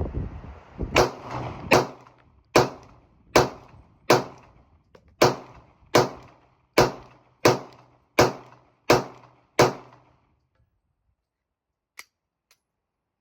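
A .40 S&W Glock 23 pistol firing a magazine of hollow-point rounds: about a dozen shots at a steady pace, roughly one every three-quarters of a second, each with a short echoing tail. A single faint click follows near the end.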